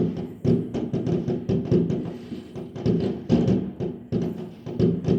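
Fireworks exploding in rapid, irregular succession: many overlapping bangs, several a second, each with a short echoing tail.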